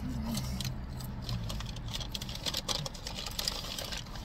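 Eating sounds close to the microphone: chewing, with crinkling of a paper fast-food bag, heard as a rapid run of small crackles and clicks.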